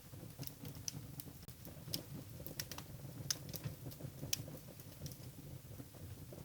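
Burning firewood logs crackling in a fireplace: irregular sharp pops and snaps, a few louder ones midway, over a low steady rumble of the flames.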